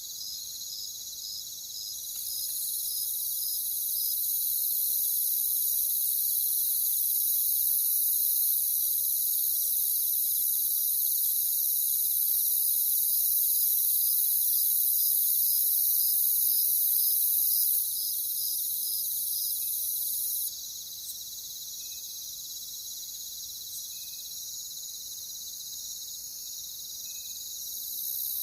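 Night insect chorus of crickets and other insects: a dense, high-pitched steady trilling with an evenly repeating chirp running through it. It grows louder about two seconds in, drops back about twenty seconds in and swells again near the end.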